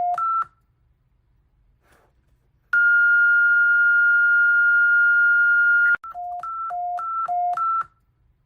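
Electronic emergency-alert tones: a run of beeps alternating between a high and a low pitch ends about half a second in, then a single steady high tone sounds for about three seconds. Another run of alternating high-low beeps follows for about two seconds.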